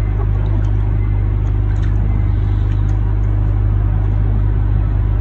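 A motor running steadily with a constant low drone, and a few faint ticks above it.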